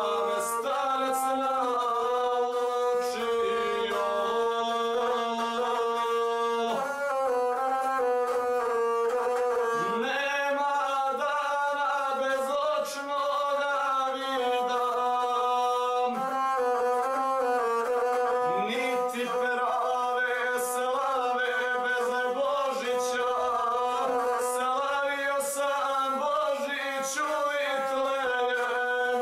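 A guslar sings Serbian epic verse to his own gusle, a bowed single-string folk fiddle. The bowed string holds close to one pitch beneath the wavering voice.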